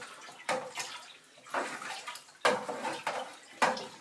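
Mead sloshing and swirling in a plastic fermenting barrel as it is stirred with a long spoon, a swish roughly every second with each stroke, mixing in sulphur and kieselsol fining agent to clear it.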